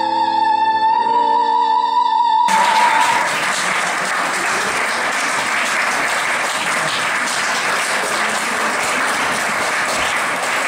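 A female singer holds a long, high operatic final note over piano chords. About two and a half seconds in the piano stops and audience applause starts suddenly, the sung note ending a moment later, and the applause carries on steadily.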